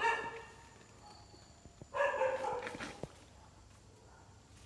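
A dog barking: one bark right at the start, then a short run of barks about two seconds in.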